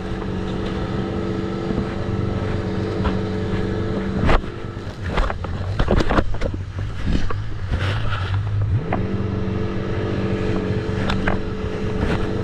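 Jet ski engine running at a steady pitch. About four seconds in, the steady note drops away for several seconds under irregular thumps and rushing noise, then it picks up again with a brief rise in pitch and runs steady to the end.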